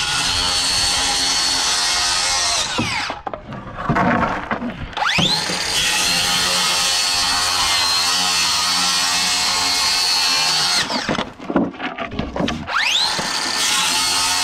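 Cordless circular saw cutting through plywood sheathing in three passes, each with a steady high whine. The first cut stops about three seconds in. The saw spins up again about five seconds in for a long cut that stops near eleven seconds, then spins up once more about two seconds later.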